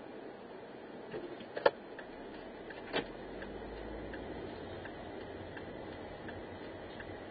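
Inside a car cabin, a turn-signal indicator ticks evenly about one and a half times a second over the steady noise of the car. There are two sharp knocks, the louder one about a second and a half in and another about three seconds in, and a low engine rumble swells as the car pulls away.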